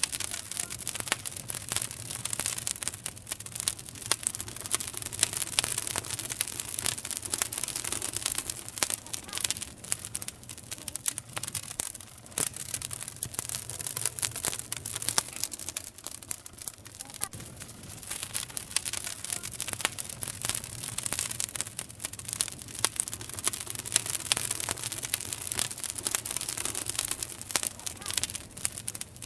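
Wood campfire burning, crackling constantly with dense, irregular snaps and pops.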